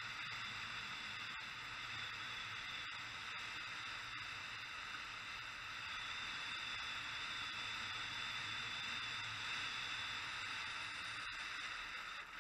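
Steady rushing of wind and breaking water on the open deck of a cargo ship under way, with no distinct events.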